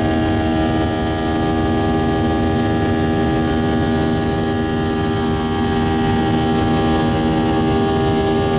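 Airliner engines heard inside the passenger cabin during the climb after takeoff: a steady drone of several held tones over a rush of air.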